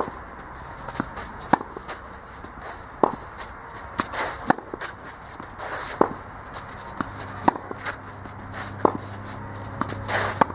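Tennis ball rally on a clay court: racket strings striking the ball and the ball bouncing, a dozen or so sharp pops spaced roughly a second apart, with shoes scuffing and sliding on the clay between strokes.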